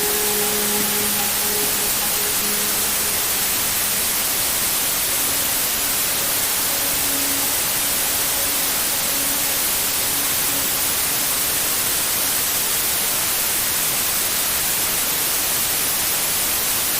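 Steady white-noise hiss for lulling a baby to sleep, bright and even. A few faint, soft held notes sound underneath it early on and again midway.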